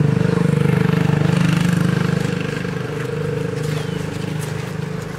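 A motor vehicle's engine running steadily with a low, even throb, loudest in the first couple of seconds and then slowly growing fainter.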